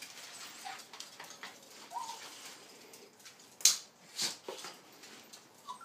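A few short, high dog whines, with sharp clicks and clatters as dog leads are handled over a tiled floor, the loudest click about three and a half seconds in.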